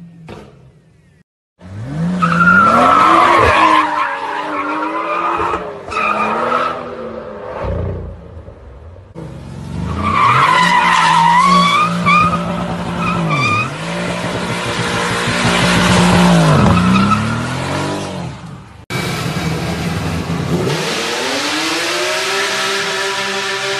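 BMW engines revving hard while the rear tyres squeal in drifts and burnouts, across a few short clips; the engine note holds high and dips and recovers a few times. Near the end, after a cut, another engine climbs in pitch and holds at a steady high rev.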